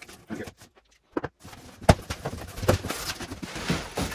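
A cardboard shipping box being cut and opened: scattered scrapes and clicks, then rustling of cardboard and packaging, with a sharp knock about two seconds in.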